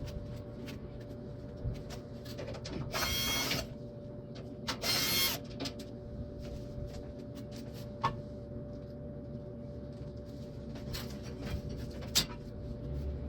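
Disassembly work on an air-conditioner unit: two short whirring bursts of about half a second each, around three and five seconds in, then scattered clicks and a sharp knock near the end, over a steady hum.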